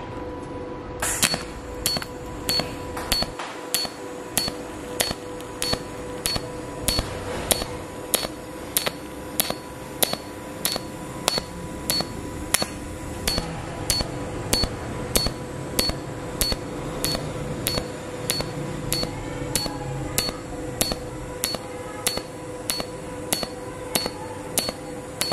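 TIG welding arc on stainless steel, with filler rod fed into the bead: a steady hum with a sharp click about twice a second as the arc pulses, starting about a second in with a crackle as the arc strikes.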